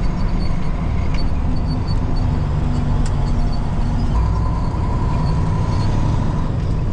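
Diesel engine running steadily under the cab, a continuous low rumble, with a faint steady whine from about four seconds in that lasts about two seconds.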